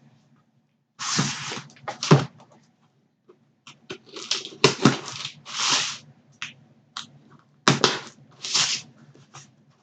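Cardboard and plastic packaging being handled and opened by hand: short bursts of rustling and tearing with scattered clicks and knocks.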